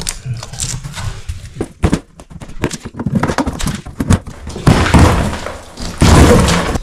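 Hardboard sheeting being pried and torn up off wooden floorboards: a run of knocks and cracks, then two longer, louder tearing, scraping noises near the end.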